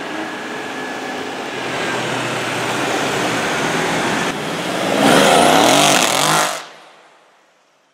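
Twin-turbocharged Mercedes C63 AMG Black Series V8 with a Capristo exhaust, loud as it drives off; about five seconds in it revs harder with rising pitch, then the sound drops away quickly and fades out.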